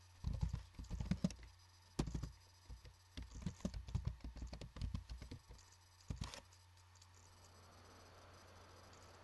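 Typing on a computer keyboard: several runs of quick key clicks with short pauses between them, the longest run in the middle, and a last short run a little after six seconds.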